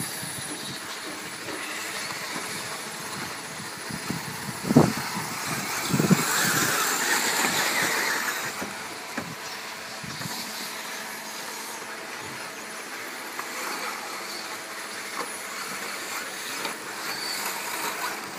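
Electric 1/8-scale RC buggies racing on a dirt track: a steady high whine of their motors with the hiss of tyres on dirt. There are two sharp thumps about five and six seconds in, and a louder pass just after.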